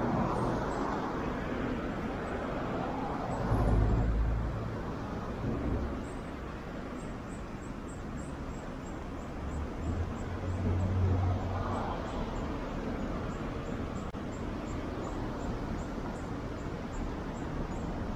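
Street traffic: a steady hum of cars on a city road, with a vehicle passing more loudly about four seconds in and another around eleven seconds in.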